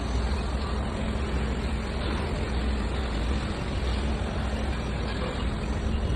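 Heavy engine running steadily with a low rumble.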